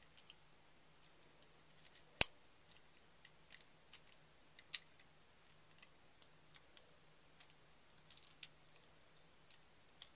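Small parts of a KWA M1911 airsoft pistol's trigger group clicking and scraping as they are worked into the frame under the sear spring, in irregular faint clicks with one sharper click about two seconds in.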